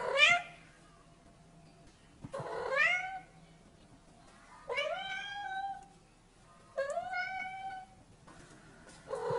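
Domestic cat meowing repeatedly, about five meows spaced roughly two seconds apart, each rising in pitch and then levelling off, the middle ones drawn out to about a second.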